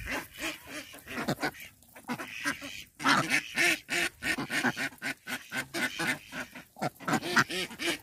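A flock of domestic ducks quacking, with many short calls overlapping one another in quick succession and brief lulls about two and three seconds in.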